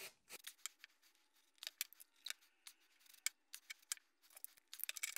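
Faint, irregular light clicks and taps of hard plastic as 3D-printed PLA test pieces are handled, pressed together and set upright on a mat.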